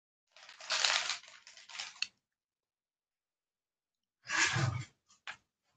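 Close rustling and handling noise on a computer microphone in two stretches, followed by two short clicks near the end.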